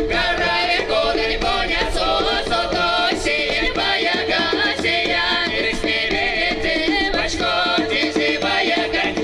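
Mordovian folk song sung by an ensemble of several women's and men's voices, with a djembe hand drum keeping the beat.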